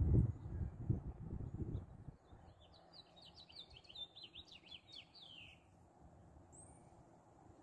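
A songbird sings a fast run of short downward-slurred high notes lasting about three seconds, and one thin high note follows near the end. Before the song, for the first two seconds, there is a louder low muffled rumbling.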